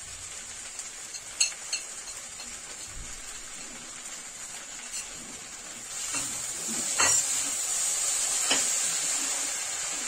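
Cut okra (bhindi) frying in a kadhai, a steady sizzle that grows louder about six seconds in as it is stirred. A metal spatula clinks against the pan a few times.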